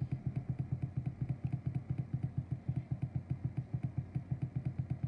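A low, rapid throbbing of about ten even pulses a second, like an engine idling.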